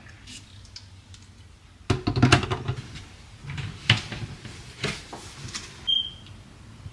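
A series of knocks and clatters, with a short high beep about six seconds in.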